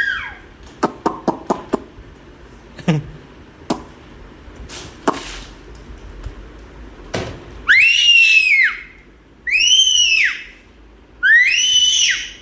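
A toddler making high-pitched chirping squeals: three long calls that rise and fall in pitch in the second half. Earlier, a quick run of about six clicks about a second in and a few scattered knocks.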